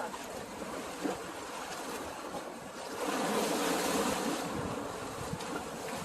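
Sea water washing against the shore, with a louder surge of rushing water about three seconds in that dies back over a second or so.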